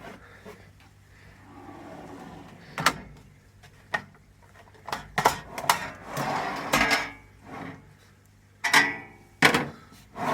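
Drawers of a Facom mechanic's steel tool chest being slid open and shut: a string of sharp metallic clacks, with a longer sliding rattle about six seconds in.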